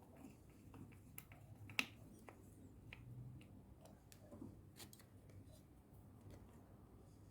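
Faint, scattered clicks and taps of small lock parts being handled and worked apart by hand, the sharpest click about two seconds in.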